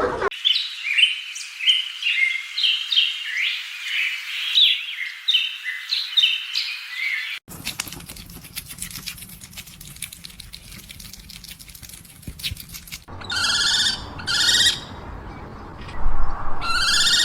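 Small birds chirping in a busy run of quick notes for about seven seconds, then a stretch of faint clicking, then short clear high calls in two pairs near the end.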